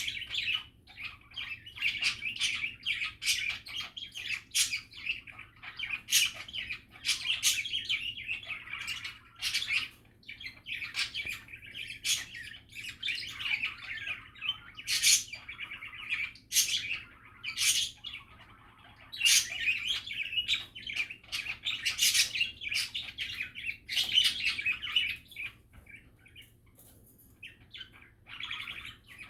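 Pet budgerigars chattering: a continuous warbling babble of chirps, clicks and sharp squeaky calls, easing off briefly near the end.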